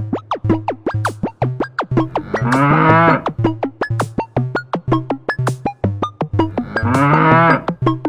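Upbeat electronic dance track with a steady beat and short synth plucks, with a cow's moo mixed in twice: once about two and a half seconds in, and again about seven seconds in.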